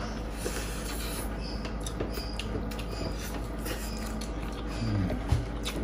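Soft eating sounds at a table: scattered small clicks and rubbing as hands mix rice and meat on metal plates.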